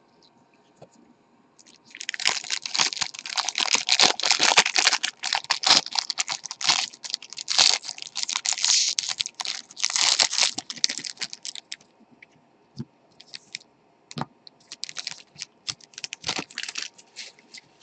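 Crinkling and tearing of trading card pack wrappers, with clicks and rustles of cards being handled. The crinkling comes in a long dense stretch, stops around the middle, and comes back in a shorter burst near the end.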